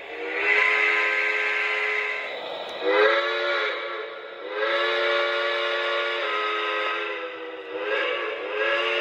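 Chime steam whistle played through the sound system of an O-scale PRR T1 Duplex model locomotive (Lionel Legacy). It sounds a string of blasts, long, short, long, short, then long again, and each blast bends slightly up in pitch as it opens.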